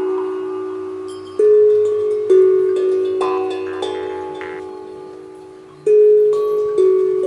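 Chillout electronic music: bell-like tones struck in pairs a second or so apart, each ringing out and slowly fading, over a soft low bass.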